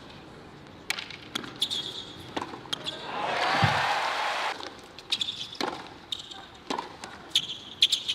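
A tennis ball bouncing on a hard court in sharp, ringing knocks, a few each second, in two groups. A short swell of crowd noise comes about three seconds in.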